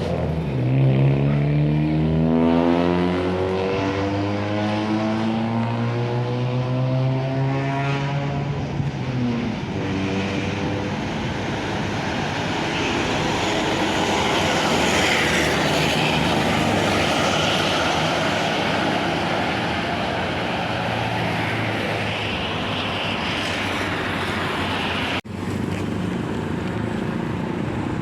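Bus engine accelerating past, its drone climbing steadily in pitch for about nine seconds, followed by a steady rush of engine and tyre noise from passing road traffic.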